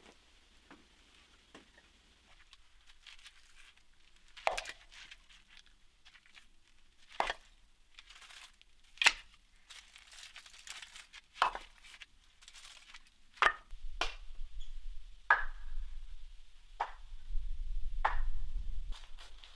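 Split firewood pieces set one at a time onto a woodpile, each landing with a sharp wooden knock, about eight in all a couple of seconds apart, with light rustling and scraping of wood between.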